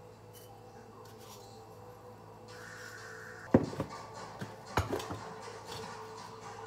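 Two sharp knocks about a second apart, each trailed by a few lighter taps, as a glass salt shaker and a plastic canister of chicken broth powder are set down and picked up on a kitchen countertop.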